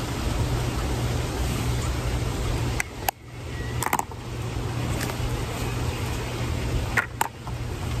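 Steady outdoor background noise with a low rumble. A few small clicks and taps come about three to four seconds in and again about seven seconds in.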